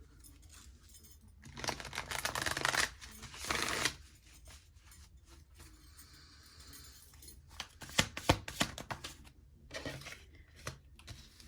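Tarot cards being handled: two short spells of rustling shuffling, then a run of sharp card clicks and taps near the middle.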